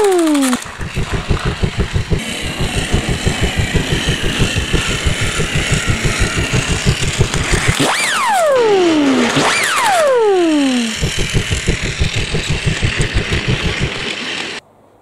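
Battery-powered Plarail toy trains running on plastic track, their small motors and wheels making a fast, even clatter. A falling whistle-like tone sounds twice, about 8 and 9.5 seconds in, and the clatter cuts off near the end.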